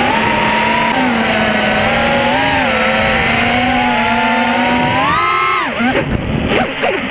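Brushless motors of a 220 mm FPV racing quadcopter (KingKong 2205 2300KV, 5-inch three-blade props) whining under throttle, the pitch shifting as the throttle is worked. A sharp rise in pitch just past five seconds, then the pitch drops away and the sound turns choppy and uneven near the end.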